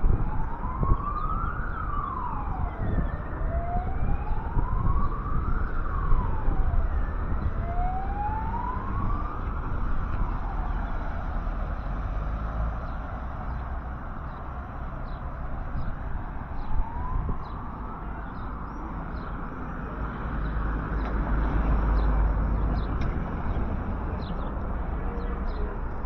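An emergency-vehicle siren wailing, its pitch climbing for about two seconds and dropping back, three times in the first ten seconds, then once more more faintly and fading, over a low street rumble.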